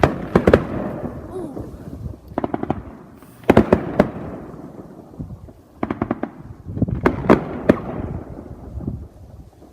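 Fireworks going off in quick clusters of sharp bangs, about five clusters, each trailing off in a rumbling echo.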